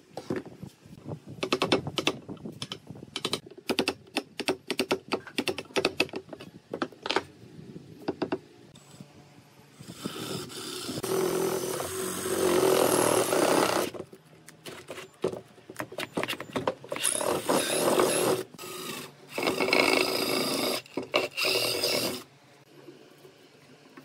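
Cordless drill boring into a wooden beam, running in several bursts of a few seconds each in the second half. A quick run of clicks and knocks from wood and tools on the bench comes before it.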